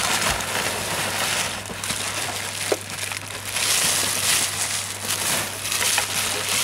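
Crumpled newspaper packing rustling and crinkling as it is pulled out of a cardboard box by hand.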